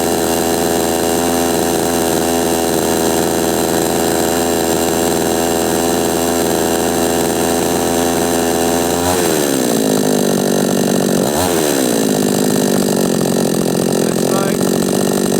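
Chinese 45cc two-stroke chainsaw, freshly re-ported and fitted with new piston rings, running on its first start. It holds a steady high speed, then drops sharply in speed about nine seconds in, gives one quick rev a couple of seconds later, and settles into a slower steady run.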